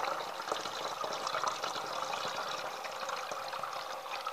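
Water solution poured from a litre jar into a 2-litre plastic bottle, a steady filling sound.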